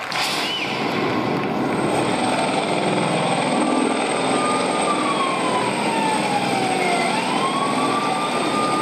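Sound effect from the dance soundtrack over a hall's PA: a loud steady roar with a siren wailing slowly, falling in pitch for a few seconds and then rising again.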